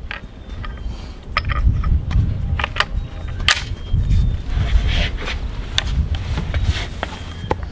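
Several sharp metallic clicks from a Springfield Model 1873 trapdoor rifle being loaded by hand: the cartridge goes in, the breechblock is closed, and the hammer is cocked. The loudest click comes about three and a half seconds in. A low, uneven rumble of wind on the microphone runs underneath.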